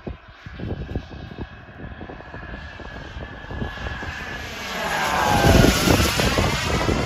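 Turbine engine of a large RC model jet whining in flight. About five seconds in it grows much louder as the jet passes close by, its pitch bending downward as it goes past.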